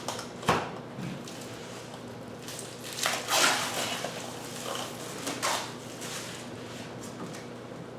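Packaging being handled while unboxing a mini-fridge: a sharp knock about half a second in, then several short rustling bursts.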